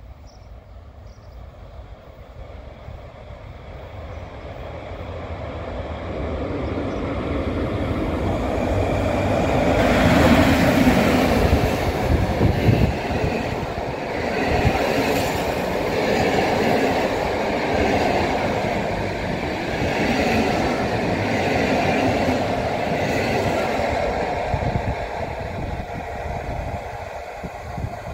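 Passenger express hauled by an EP07 electric locomotive approaching and running through a station without stopping. The rumble grows louder to a peak about ten seconds in as the locomotive passes, then the coaches' wheels keep rolling past on the rails before the sound fades as the train moves away.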